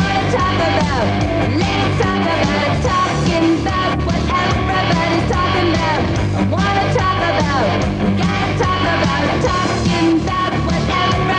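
Loud rock music from a band, with singing over it.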